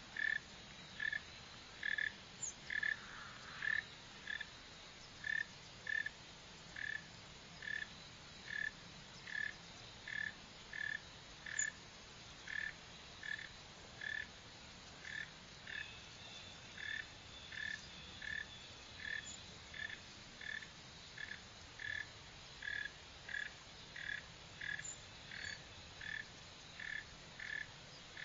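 Northern mole cricket calling: a steady, evenly spaced series of short, low-pitched chirps, about three every two seconds.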